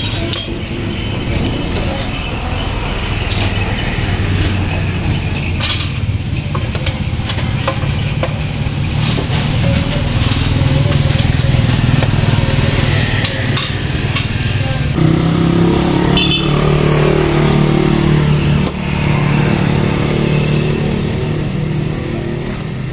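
Small motorcycle engine running steadily at idle; its note steps up to a slightly higher, fuller hum about fifteen seconds in. A few light clicks of tools can be heard over it.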